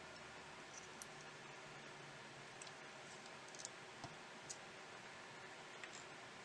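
A handful of faint, irregular clicks and ticks over a steady hiss, typical of small tools and plastic or metal phone parts being handled while a Xiaomi Mi 4 smartphone is worked on.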